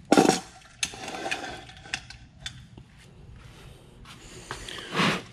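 A truck's tyre rolling by hand up onto a corner-weight scale pad, with scattered clicks and scuffs. There is a short, loud rush of noise at the start and another just before the end.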